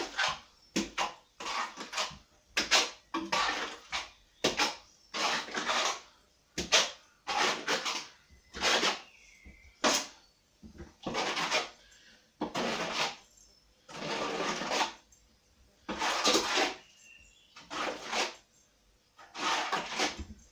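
Steel plastering trowel scraping across wet Thistle Multi-Finish skim coat on a wall, in repeated strokes about one a second, each under a second long.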